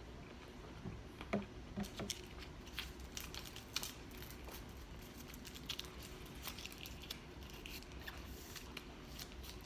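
Close-miked eating of crunchy fried chicken tenders: scattered small crunches and mouth clicks of chewing, fairly quiet, with a few louder bites in the first four seconds.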